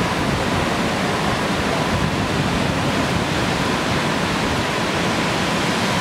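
Stewart Falls plunging onto rock, heard close to its base: a steady, loud rush of falling water.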